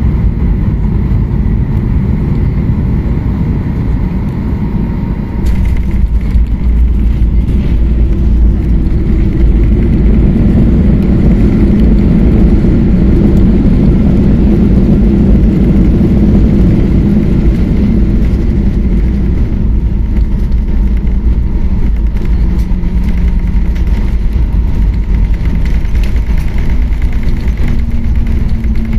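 Cabin sound of a Boeing 737-800 landing on a wet runway: a steady low rumble of engines and airflow, then a sudden rise in level about five seconds in as the wheels touch down. A louder engine run-up follows as reverse thrust is applied, easing off as the jet slows on the rollout.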